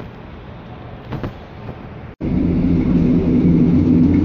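Faint platform background with a couple of brief clicks. Then, after an abrupt cut, the loud steady drone of a diesel multiple unit's engine, heard from on board as the train runs under power.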